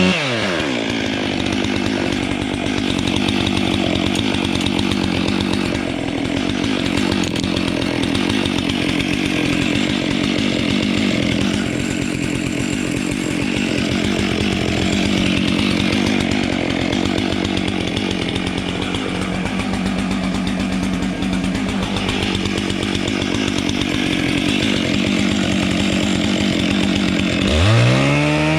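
Two-stroke chainsaw cutting steadily into a tree trunk, its engine held down under load. The engine pitch drops as the chain bites at the start and rises again as it revs free near the end.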